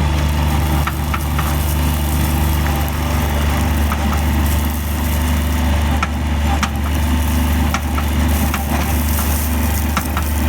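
Skid steer engine running steadily under a low hum, with scattered sharp clicks and clatters of granular A gravel as the base is spread.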